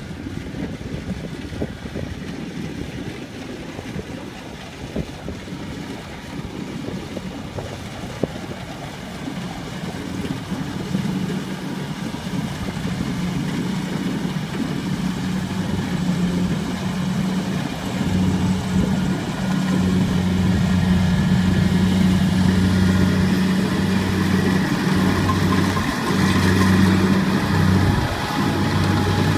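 Rice combine harvester's diesel engine running steadily while cutting rice, its hum growing louder as the machine comes closer, with a deeper tone joining it about halfway through.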